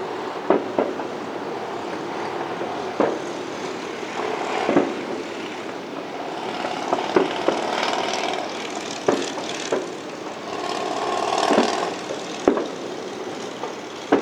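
Fireworks display: about ten sharp bangs at irregular intervals, each echoing briefly, with a dense crackling hiss through the second half as crackle shells burst.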